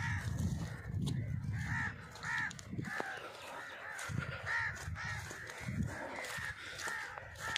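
Red-wattled lapwing calling: a run of short, sharp repeated notes, two or three a second, over a low rumble.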